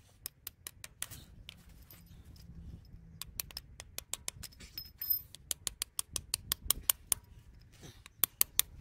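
Claw hammer tapping short lengths of 16 mm threaded steel bar into holes drilled in the concrete: a string of sharp metal taps, several a second in quick runs with short pauses between them.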